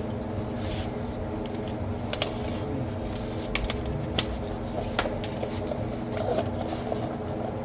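A few sharp clicks and taps from hands working on small parts, over a steady background hum.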